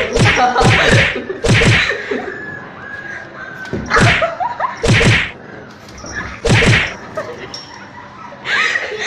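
A French bulldog and a kitten scuffling: a run of short, sharp noisy bursts, several close together in the first two seconds, then single ones a second or more apart.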